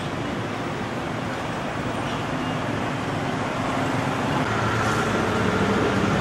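Steady road traffic noise of passing vehicles, growing a little louder near the end.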